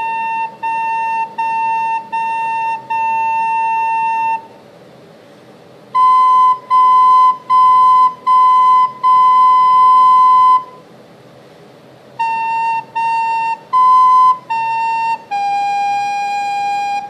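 Soprano recorder playing a simple tune on the notes A, B and G. Three phrases of short quarter notes, each ending on a held half note, with half-note rests between them. The first phrase stays on one note, the second on a slightly higher one, and the last ends on the lowest note, held.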